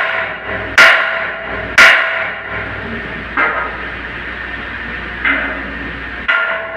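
Hammer blows, five in all and about a second or more apart, each with a short ringing tail. The first two are the loudest.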